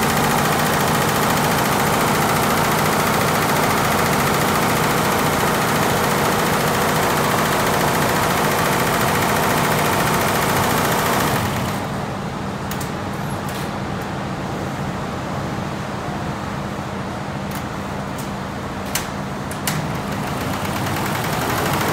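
A Lejia multi-head embroidery machine with over a hundred heads running at speed: a dense, steady clatter of many needle bars over a low machine hum. About halfway through the high clatter drops away and a quieter hum remains, with a couple of sharp clicks near the end.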